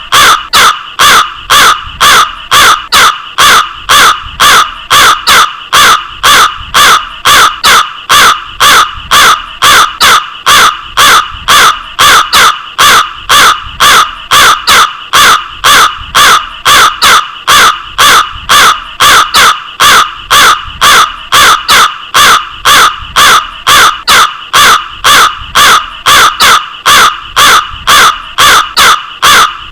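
A crow cawing over and over in a steady, unbroken rhythm, about two loud caws a second.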